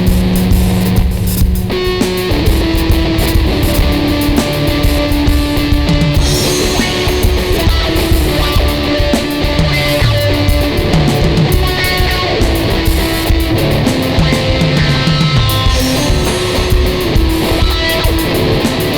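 Ibanez electric guitar played in a heavy rock jam over drums from an Alesis electronic drum kit: held guitar notes over a steady, continuous drum beat.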